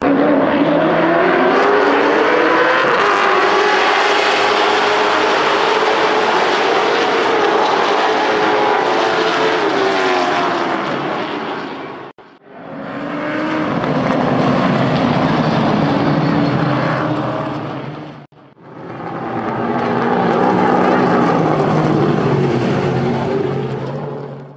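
Stock car engines running hard on a short oval, their pitch gliding up and down as cars pass and change speed. The sound breaks off twice with brief drops to near silence.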